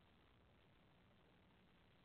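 Near silence, with only a faint steady hiss.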